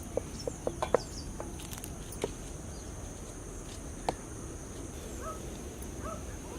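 Outdoor ambience: a steady high insect drone, like crickets, with short bird chirps in the second half. A few sharp clicks or taps fall in the first second and again around two and four seconds in.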